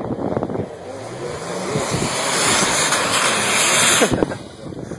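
A stuck car's engine revving and its wheels spinning in snow, the noise building over a few seconds and cutting off suddenly near the end.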